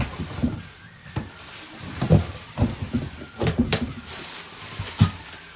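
A taped cardboard box being handled and pried at: irregular knocks and thumps against it, with rustling and scraping of cardboard and tape in between.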